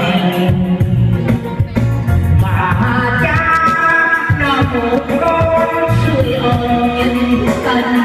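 Music with a singing voice over held bass notes, playing steadily without a break.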